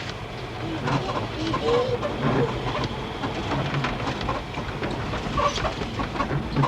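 A car driving slowly over a snowy, rutted road, heard from inside the cabin. There is a steady low rumble, with scattered rattles and clicks and a few short squeaks.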